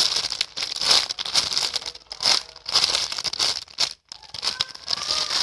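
Plastic crinkling in irregular bursts as it is handled close to the microphone.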